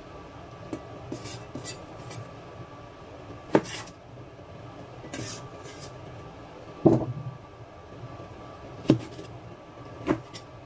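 A cleaver chopping boiled okra on a metal cutting tray, the blade knocking against the metal: four sharp knocks a second or two apart, the loudest about seven seconds in, with a few lighter taps between.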